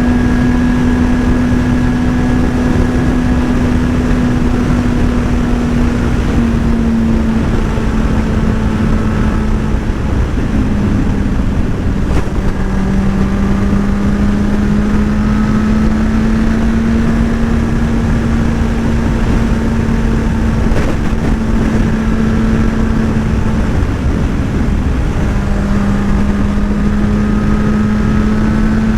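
Motorcycle engine running at a steady cruising speed with heavy wind rushing over the microphone; the engine note eases down briefly a few times and then climbs slowly again.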